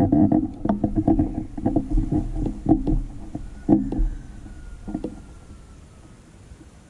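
A motor engine running with an uneven, knocking beat, loud at first and then fading away over the last few seconds as if moving off.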